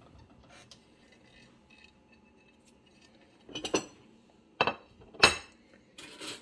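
A ceramic dinner plate clinking and knocking as it is handled and set down on a kitchen countertop: a few sharp knocks after a quiet start, the loudest about five seconds in, then a short rustle near the end.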